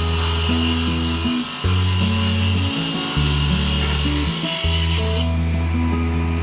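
Background music with a steady bass line over a steady rasping noise of a woodworking tool cutting or working wood; the tool noise stops abruptly about five seconds in while the music plays on.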